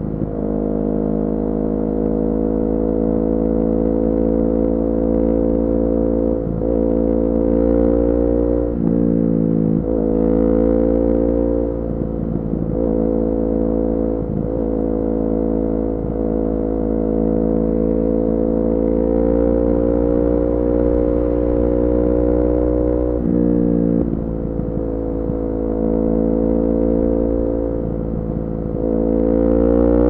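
Kawasaki Ninja 400's parallel-twin engine through an Akrapovic full exhaust system, ridden on the road. The engine note climbs and holds, with several sudden drops in pitch, and revs up steeply near the end.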